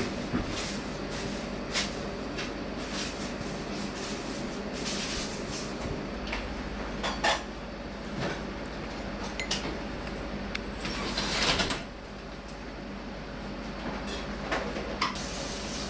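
Light clicks and knocks of tableware over a steady background hum, scattered through and bunched together about eleven seconds in.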